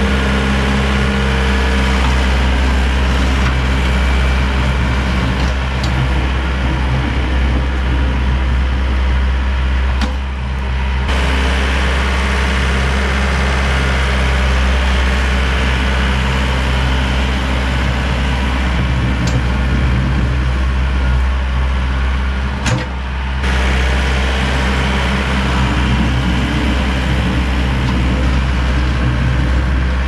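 A vehicle engine running steadily with a deep, even hum. It dips briefly twice, about ten seconds in and again about twenty-three seconds in.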